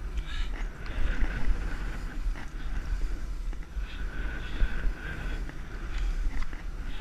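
Skis sliding and turning through snow, a hiss that swells and fades with each turn, over a steady low rumble of wind buffeting the action camera's microphone.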